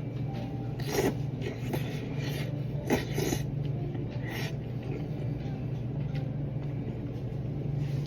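A handful of short scraping, rustling sounds, the loudest about one and three seconds in, over a steady low hum.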